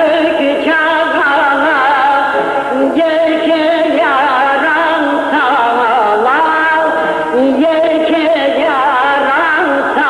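Turkish folk music, an Elazığ türkü, with a continuous ornamented melody that bends and wavers in pitch. It sounds dull, with the treble cut off as on an old tape recording.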